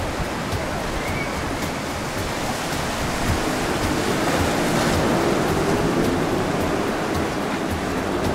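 Wind buffeting the microphone and water rushing past a moving boat: a steady rushing noise that grows a little louder about halfway through.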